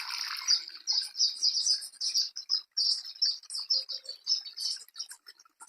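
Small birds chirping: a rapid run of short, high chirps, several a second, with a couple of brief pauses.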